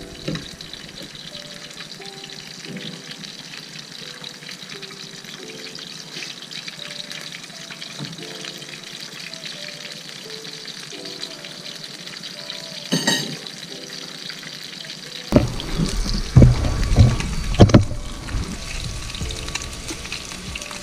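Red roman fillet frying in olive oil in a pan, a steady sizzling hiss, under soft background music. About fifteen seconds in come a few loud knocks and bumps.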